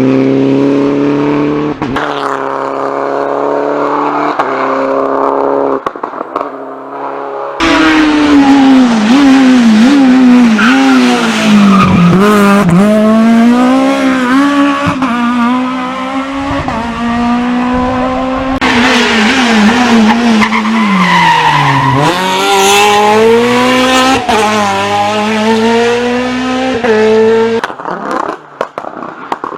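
Rally car engines at full throttle, pitch climbing and dropping again and again as the drivers shift gears, lift and brake, with tyre squeal as they corner. Several separate passages follow one another with abrupt cuts.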